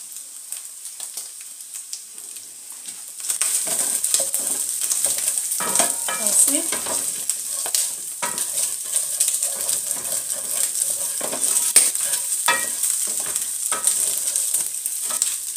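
Boiled tripe sizzling as it fries in a non-stick pan, with a wooden spoon stirring it and scraping and knocking against the pan. The sizzling turns louder about three seconds in.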